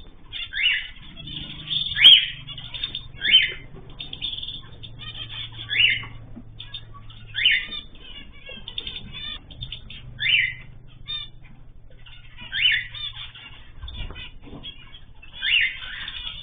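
Cage birds calling: a short, loud call repeats about eight times, one to three seconds apart, over steady softer chirping from other birds.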